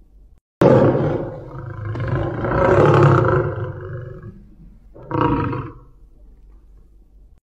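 Tiger roaring: one long roar of about four seconds, then a shorter second call about five seconds in.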